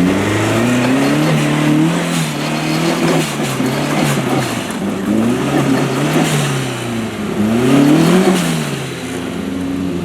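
Modified off-road 4x4 truck's engine revving up and down repeatedly under load, with the sharpest rise and fall about eight seconds in.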